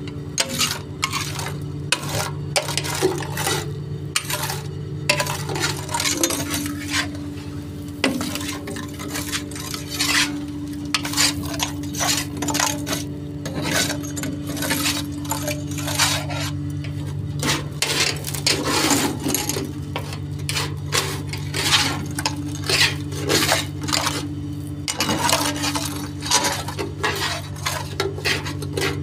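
A metal hand tool scraping and knocking on the steel floor of a raised tipper truck body, in irregular strokes, clearing wet iron ore fines that have stuck to it. The truck's engine hums steadily underneath.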